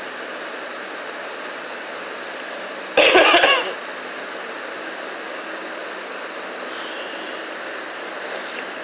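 A person coughs once, loudly and briefly, about three seconds in, over a steady background hiss.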